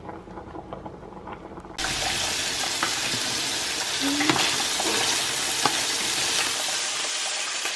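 Diced bacon cubes frying in oil in a stainless steel pan: a steady sizzle that starts abruptly about two seconds in, with a few taps and scrapes of a plastic spatula stirring them.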